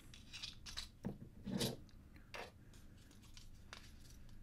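Small plastic clicks and scrapes as a blue peg is pushed and twisted into a 3D-printed plastic puzzle box. There are several short, sharp sounds, the loudest about a second and a half in, then only faint handling ticks.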